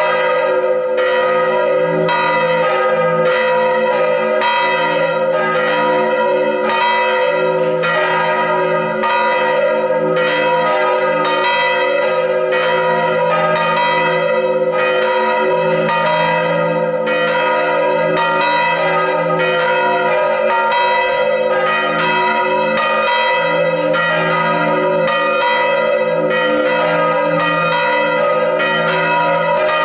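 Church bells swinging in full peal (volée), their clappers striking in a continuous, overlapping run of strokes over a sustained ringing hum. The tower holds three swinging bells, tuned D#, A# and B.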